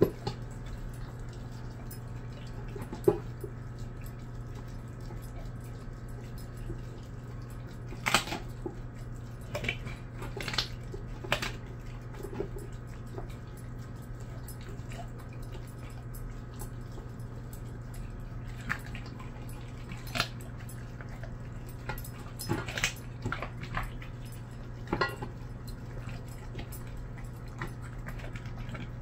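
A dog gnawing a raw chicken drumstick in a stainless steel bowl: scattered crunches, and clicks of bone and teeth against the metal, with a cluster about a third of the way in and more near the end. A steady low hum runs underneath.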